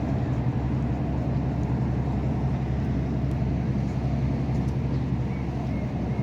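A large engine running with a steady low drone that holds the same pitch throughout, with a few faint short chirps near the end.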